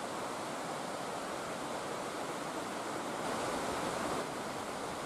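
Steady, even rushing noise of the open air, with a brief louder, brighter swell a little past halfway.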